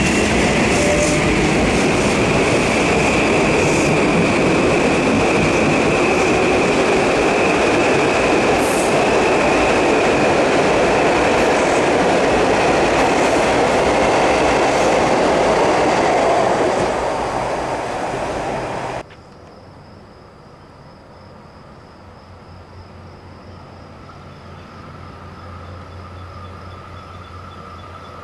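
A train passing close by: a loud steady rush of wheels on rail with a thin high squeal above it. It fades, then cuts off abruptly about 19 s in, leaving a much quieter steady hum.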